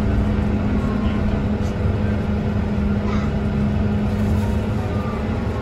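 Scania DC9 five-cylinder diesel engine of a Scania K230UB single-deck bus, heard on board under way. It runs with a heavy low rumble and a steady droning hum held over it, the weird engine sound this bus is known for.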